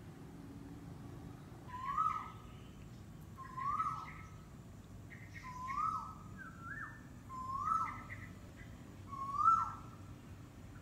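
A bird calling six times, about two seconds apart. Each call is a short note that rises and then drops, with fainter, higher chirps just before most of them.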